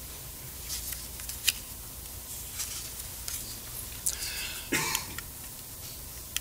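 Room tone of a lecture hall with a steady low hum and a few faint clicks, and one short cough about four and a half seconds in.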